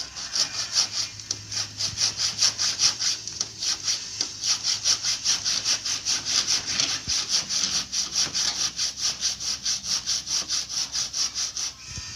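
Handsaw cutting through bamboo, a steady run of quick, even rasping strokes, about four or five a second, stopping just before the end.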